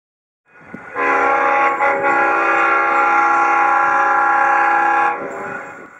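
Locomotive air horn sounding one long blast of about four seconds, several notes at once, then dying away.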